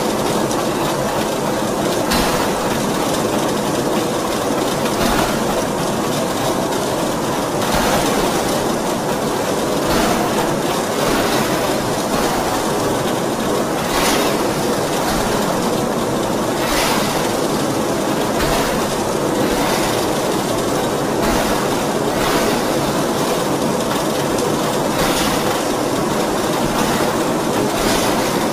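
D53K CNC radial-axial ring rolling mill running as it rolls a red-hot metal ring: a loud, steady mechanical rumble with a constant hum and a few scattered knocks.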